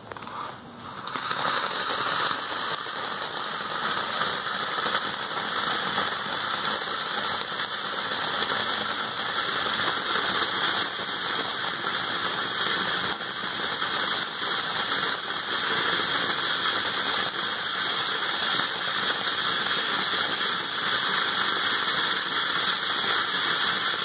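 Black Cat Peach Tree Fountain, a ground fountain firework, spraying sparks with a steady hiss. The hiss starts up about a second in.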